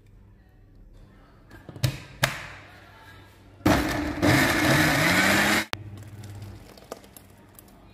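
Two sharp knocks, then a mixer grinder's steel jar running for about two seconds with its pitch rising as the motor spins up, grinding a cooked tomato, onion and cashew mixture into paste, and cutting off suddenly.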